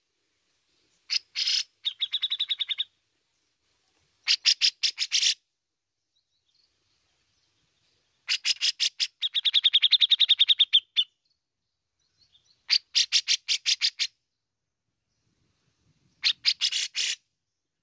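Grey-cheeked bulbul (cucak jenggot) giving six harsh, rapid chattering phrases with pauses between them, each a fast string of sharp notes lasting one to three seconds; the longest comes about eight seconds in. These are the rattling calls that bird keepers call besetan, the sign of a bird singing in full form.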